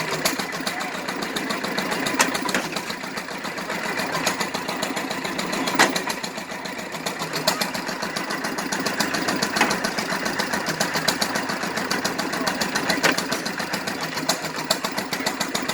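An old-fashioned hay baler running: a steady, fast mechanical clatter with a louder knock now and then.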